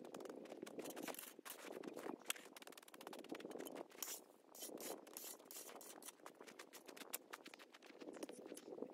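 Faint crunching and scraping of packed snow: a snow shovel working the snow mound and boots stepping in the snow, heard as a quick, irregular crackle.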